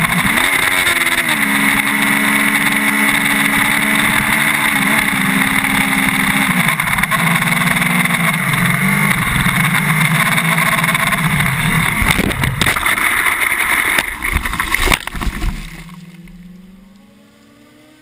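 Sport motorcycle engine running at road speed with heavy wind noise on the microphone; its pitch shifts with gear changes in the first seven seconds. From about twelve seconds in a series of knocks and scrapes breaks in as the bike crashes off the road into undergrowth, and then the sound falls away to a faint rising whine.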